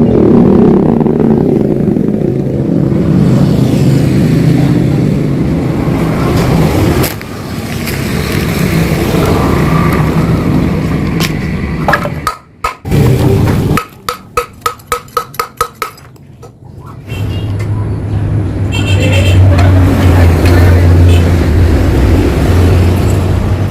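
Yamaha RX-King two-stroke single-cylinder motorcycle engine running through an exhaust that has been hollowed out for a crisp, growling note. It drops away for a few seconds in the middle to a quick run of clicks, then runs steadily again to the end.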